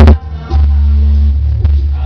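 Loud, bass-heavy dance music from a sonidero's sound system. It drops out for a moment at the start and comes back in about half a second in.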